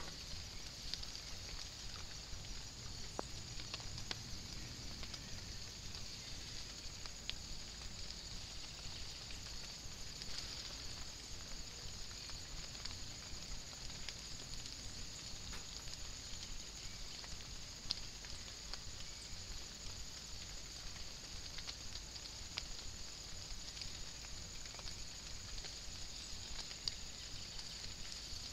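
Light rain falling on woodland leaves and ground: a steady hiss with scattered single drips ticking through it.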